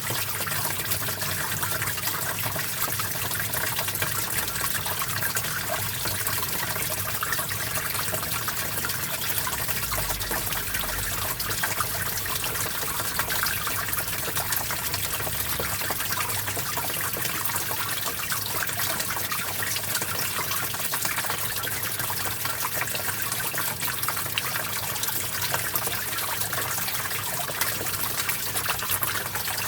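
Small stream flowing steadily, water gushing and trickling over rocks with a constant babble.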